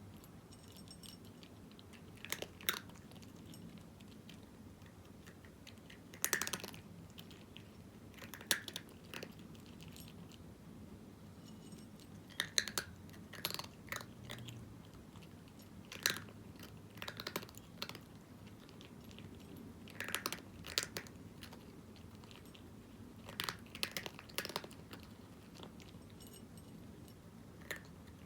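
A cat crunching dry kibble, in short bursts of sharp crunches separated by pauses of a couple of seconds.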